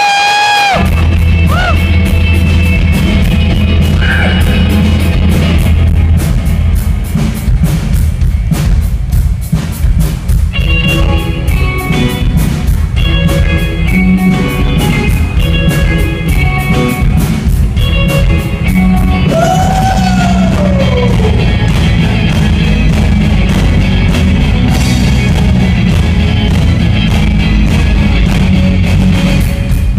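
Live rock band playing loud: electric guitars, drum kit and keyboards, with a male singer's voice over them at times.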